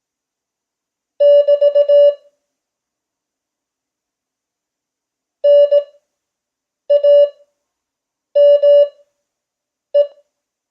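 Morse code practice tone sending five groups of dots and dashes at 5 words per minute Farnsworth spacing: each character is keyed quickly at one steady pitch, with long silences between characters.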